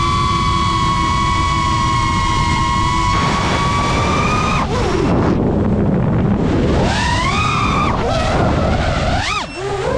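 FPV racing quadcopter's brushless motors whining at a steady high pitch over a rush of air. About halfway through, the whine breaks off briefly, then sweeps up and down repeatedly as the throttle is worked.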